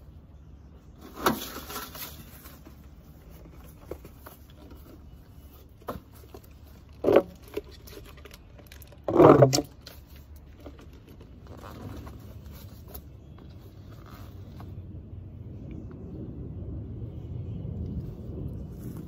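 A flexible corrugated plastic downspout extension being handled, stretched and fitted onto a gutter downspout: bursts of plastic crinkling and scraping with a few sharp knocks, the loudest about nine seconds in. A low rumble swells toward the end.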